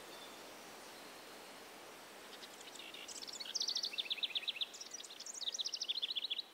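A bird singing two quick trills of short, sharp high notes, about ten a second, each run stepping down in pitch, over steady outdoor background noise. The song cuts off abruptly at the end.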